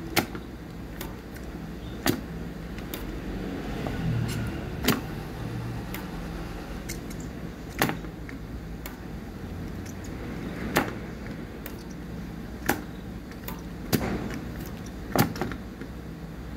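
Sharp clicks and taps, about eight of them one to three seconds apart, from a soldering iron working the solder joints on the underside of an electric-bike charger's circuit board to free the transformer. A steady low hum runs underneath.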